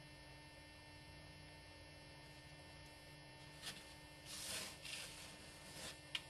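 Faint, steady electrical mains hum. About four seconds in comes a brief scraping rustle, followed by a few light clicks near the end, as a plastic ruler and pen are handled on a poster-board template.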